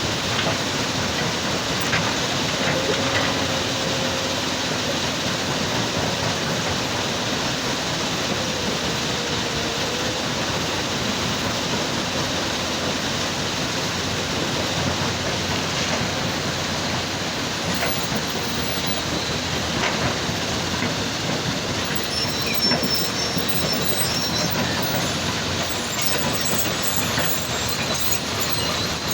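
Steady, dense machinery noise from an excavator working beside a stone crusher, running without a break, with a few sharp metallic knocks.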